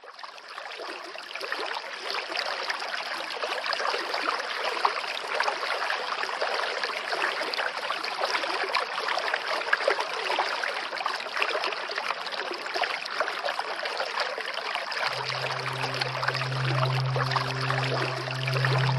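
Steady rushing of flowing water, as from a waterfall or stream, fading in over the first second or two. Near the end a low held music tone comes in over it.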